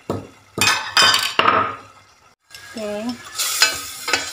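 A metal ladle clinking and scraping against a stainless steel pot while stirring spice paste, the strokes ringing. After a short break about two and a half seconds in, the paste sizzles as it fries, with lighter stirring clinks.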